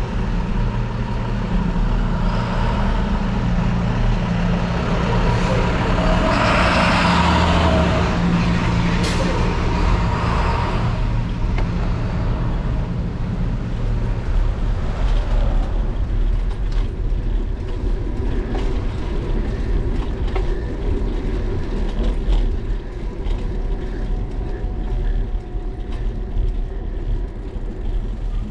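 Wind rumbling on a bike-mounted action camera's microphone, over the running engine of a large vehicle such as a bus or truck for about the first half. A loud hiss swells and fades about six to ten seconds in. Later the sound settles to quieter street traffic with scattered clicks.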